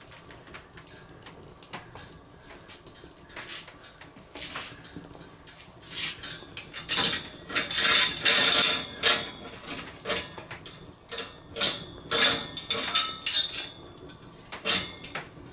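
Steel swing-grill grate and its hanging chains clanking and rattling in a run of sharp metallic knocks with a faint ring, loudest about seven to nine seconds in, as the grate is loaded and lowered over the fire; a few scattered small clicks before that.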